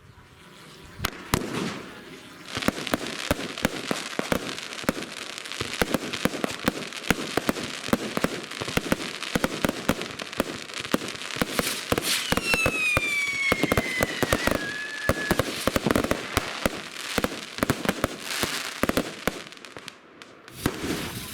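A firework cake firing a long run of rapid crackling and pops, with a whistling shot falling in pitch about twelve seconds in. It dies away shortly before the end.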